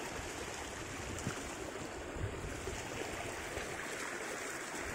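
Steady rush of creek water flowing over rocks.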